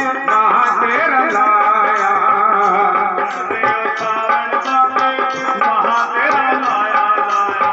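Live devotional folk music with a steady drum beat under a sustained melody.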